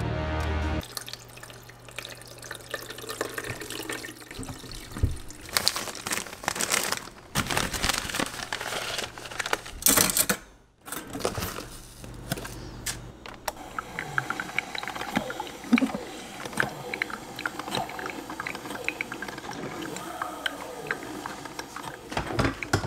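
Kitchen sounds of making drip coffee: water running and pouring, then scattered light clicks and rustles as the coffee maker's filter basket and a mug are handled.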